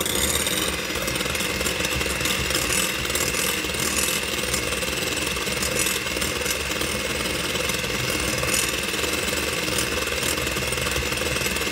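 Hamilton Beach electric hand mixer switched on and running steadily, its beaters whipping egg whites into foam in a glass bowl. The motor gives a steady, high whine.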